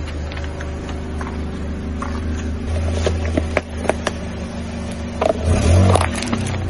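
Car engine idling with a steady low hum while the tyre rolls onto a clear plastic cup and a plastic bag, crushing them with a crackle of plastic about five to six seconds in. A few sharp clicks come a second or two before.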